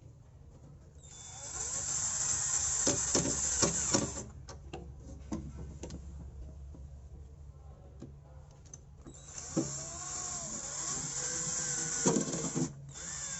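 Electric drill with a universal-joint extension driving screws back in to mount a refrigerator compressor. It runs twice for about three seconds each time, with clicks and knocks of metal parts in between.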